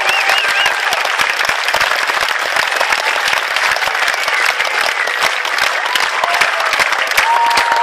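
A large concert audience applauding steadily after a song, many hands clapping at once, with a few shouts and whoops over the clapping near the start and again near the end.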